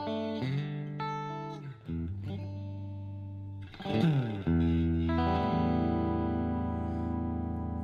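Ibanez RGAT62 electric guitar played clean through a Boss Katana 100 212 amp on the bridge pickup: a run of chords and single notes, a quick slide about four seconds in, then a chord left ringing.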